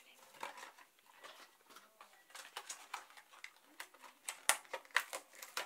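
Clear plastic blister packaging clicking and crackling as it is handled and pried open by hand, in a string of short sharp clicks; the loudest come about four and a half and five seconds in.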